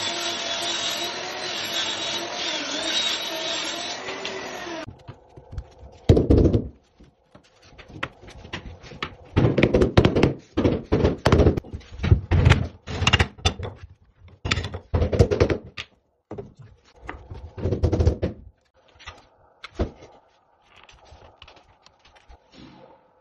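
Table saw running and ripping a parquet floorboard lengthwise, a steady loud whine that ends abruptly about five seconds in. Then comes a long run of irregular knocks and thuds.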